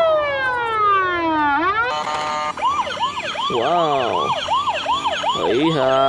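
Electronic ambulance siren: a tone sliding steadily down for about a second and a half, then switching after a moment to a fast rising-and-falling warble, about two or three cycles a second.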